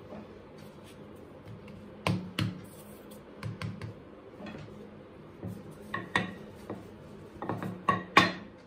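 Irregular sharp knocks and taps of kitchen utensils and a wooden rolling pin handled on a stone worktop while chapati dough is being rolled and layered, the loudest knock near the end.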